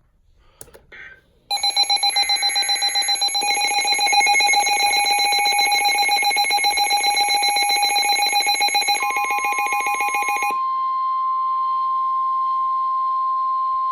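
Emergency Alert System alert tones announcing a severe thunderstorm warning. A rapidly pulsing, ringing electronic alarm of several high tones is joined about nine seconds in by a steady single-pitch tone. That tone carries on alone after the pulsing stops.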